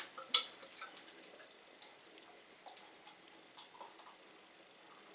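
Faint, irregular light clicks and taps of a glass beer bottle and a beer glass being handled as beer is poured, about a dozen small ticks spread over the first four seconds.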